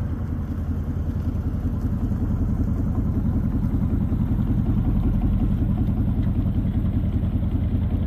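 Chevrolet K1500 pickup's engine running as the lifted truck drives slowly past, a steady low pulsing that grows a little louder toward the middle.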